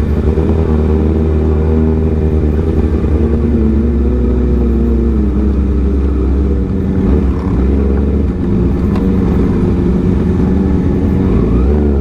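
Kawasaki ZX-6R's inline-four engine running at low, fairly steady revs that waver slightly while the bike is ridden over a rough road, with a low rumble underneath.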